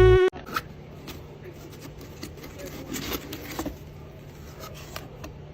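Synth music cuts off suddenly, then faint rubbing and scratching noises with scattered small clicks over a low steady hum.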